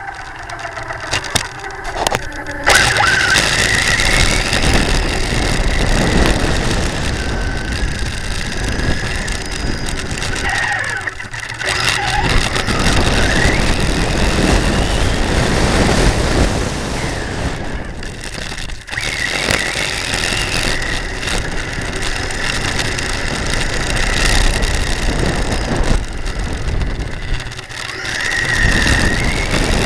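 Remote-control model's motor running with a high whine that rises and falls in pitch, over a loud rush of noise; the sound drops out briefly three times.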